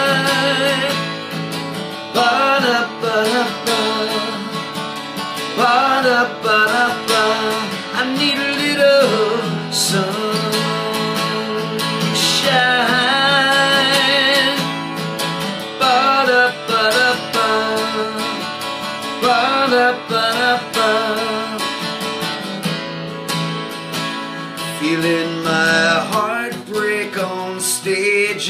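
A man singing in held, wavering notes, accompanying himself on a strummed acoustic guitar.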